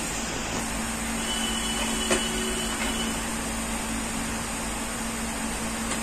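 Steady mechanical hum with a hiss running throughout, with a single click about two seconds in.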